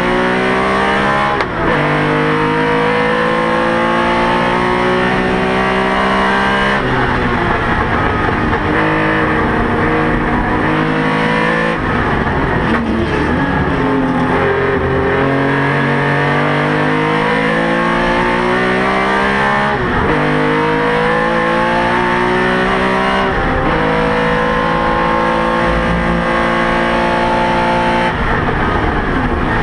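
Porsche 911 RSR's flat-six race engine heard from inside the cockpit at racing speed. It revs up through the gears, and its pitch drops back at each upshift about every few seconds. Partway through it slows and changes down for a corner.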